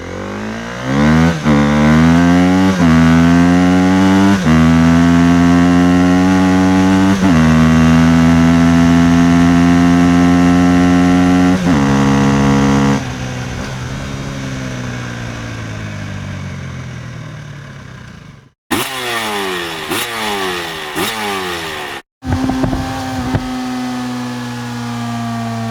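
Motorcycle engine accelerating hard up through the gears, its pitch climbing and dropping sharply at each of about five gear changes, then falling away as it passes and fades. After a sudden cut come two more short motorcycle engine clips, one revving in quick rises, the last running at a steadier pitch.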